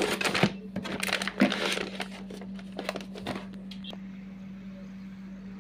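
Plastic retail pouch crinkling and rustling in hand as an adjustable hand gripper is pulled out of it, in a run of irregular crackly bursts that die away about three and a half seconds in.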